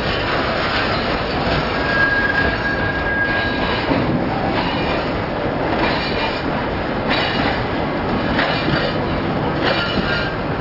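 Loaded freight cars rolling past close by: a steady rumble and rattle of the cars, with wheels clacking over rail joints about once a second in the second half. A brief thin wheel squeal rings for about a second and a half near the two-second mark.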